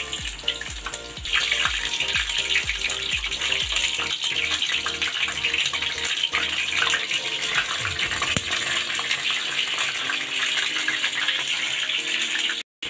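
Battered okra fritters deep-frying in hot oil in a frying pan: a dense crackling sizzle that gets louder about a second in.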